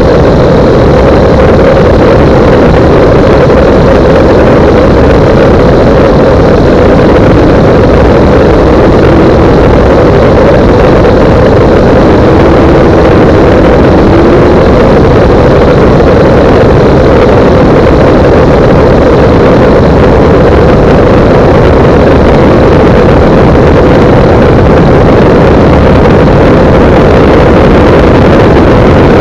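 Light single-engine propeller aircraft in flight, its engine and propeller running loud and steady without change, heard from a camera mounted outside on the airframe.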